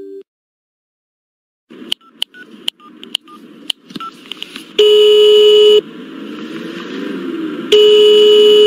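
A phone call being placed. Keypad buttons click and beep briefly while the number is dialed, and then the caller hears the ringing tone: two steady one-second rings about two seconds apart, over a faint background noise.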